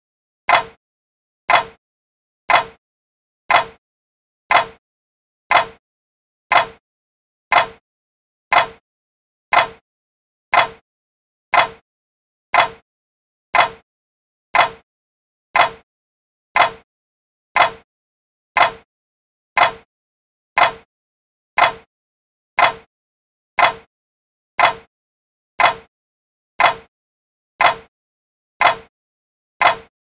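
Clock ticking evenly, one short tick every second with silence in between.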